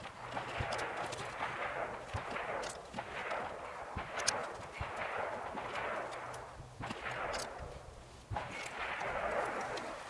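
Hand ratchet wrench tightening the steering wheel's retaining nut on the steering column: repeated strokes of rasping ratchet clicks, about five or six pulls with short pauses between them.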